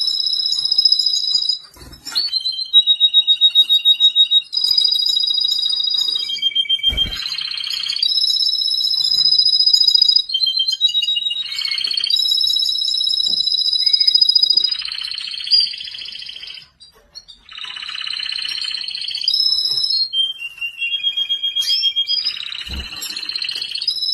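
Domestic canary singing: a string of high-pitched, rapid trills and held whistled notes, each phrase lasting a couple of seconds before switching to another, with short pauses between. A few brief low thumps are heard among the phrases.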